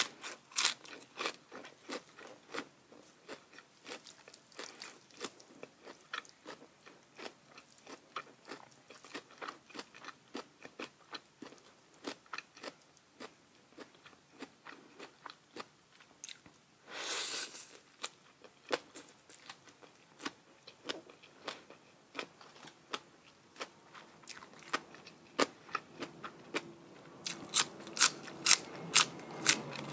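A person chewing and crunching food close to the microphone: a long run of small wet, crisp clicks. There is a short breathy rush of noise about halfway through, and the crunches grow louder and closer together near the end.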